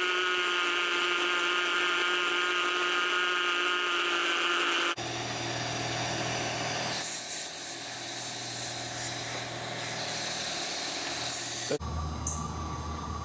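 Electric drill and Dremel rotary tool running, a steady motor whine as a burr cuts a metal adapter ring, in three clips whose sound changes abruptly about five seconds and about twelve seconds in.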